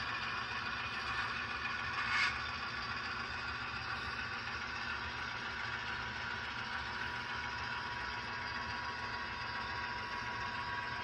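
Model railroad freight cars rolling past on the track: a steady rolling clatter of small metal wheels on rails, with one brief louder click about two seconds in.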